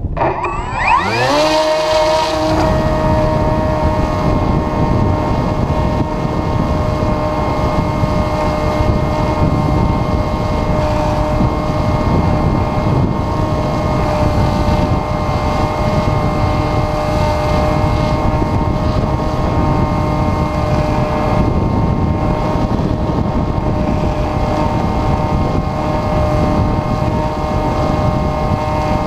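Electric motor and propeller of an Airfield Extreme Surfer 2400mm RC motor glider, heard from on board. It spins up with a rising whine about a second in, then runs at a steady pitch as the plane climbs, with wind rushing over the microphone.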